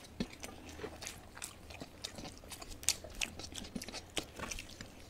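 Close-up eating sounds: people chewing, with soft wet mouth clicks and smacks at irregular intervals and a sharper click about three seconds in.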